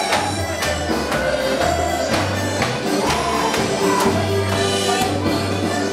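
Loud recorded dance music with a steady beat, a bass line in held notes and a melody over it.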